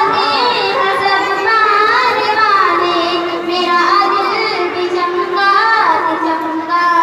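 A young girl singing solo into a microphone, amplified through a PA. Her melody rises and falls in long, gliding, ornamented phrases.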